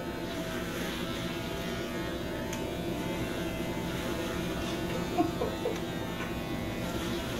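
Electric hair clippers buzzing steadily as they are run through hair on a head.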